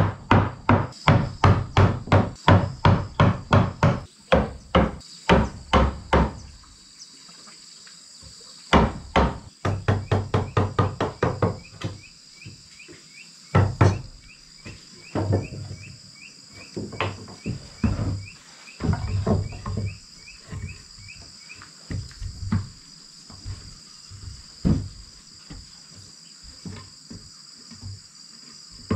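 Wooden mallet striking a wood chisel into a plank, in quick runs of blows about three a second, then slower, scattered knocks. Insects buzz steadily and high-pitched underneath.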